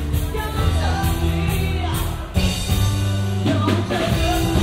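Loud rock-style music with a singing voice, a steady bass line and held notes, with a brief drop in loudness a little past halfway.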